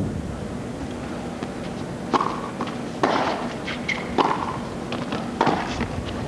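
Tennis rally: a ball struck back and forth by rackets, four sharp hits a little over a second apart, over the low hum of a stadium court.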